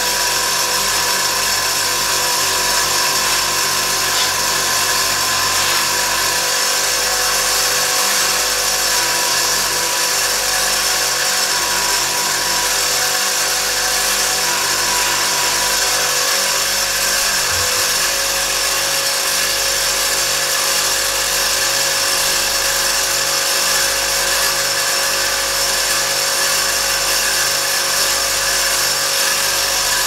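Electric power tool running steadily, polishing the steel tools of a Victorinox Swiss Army knife, with a steady whine whose pitch steps slightly higher about halfway through.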